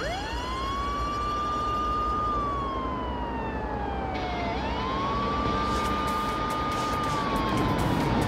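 Police van's siren wailing in two slow cycles. Each one rises quickly to a high tone, holds it for about two seconds, then slides slowly down before climbing again.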